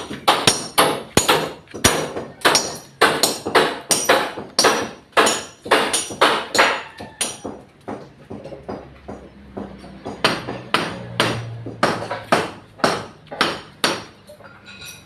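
Hammer blows struck over and over at about two to three a second, pausing for a few seconds near the middle and then starting again.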